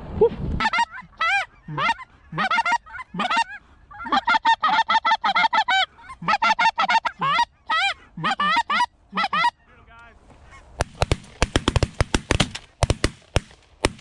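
Geese honking in a quick, overlapping series for most of nine seconds, then a rapid volley of about a dozen shotgun shots from several guns over roughly three seconds as the hunters shoot at the flock.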